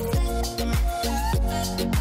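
Background music with a steady beat and deep, pitch-dropping kick drums under sustained tones.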